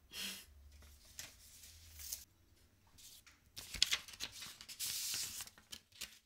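Paper rustling and crinkling as hands open an envelope and slide a sticky note out of it, in irregular scratchy bursts with small clicks, busiest in the second half.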